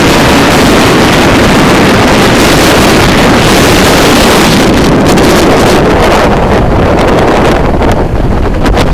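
Strong storm wind buffeting the microphone, with waves breaking on the lake shore; the hissing rush eases a little about six seconds in.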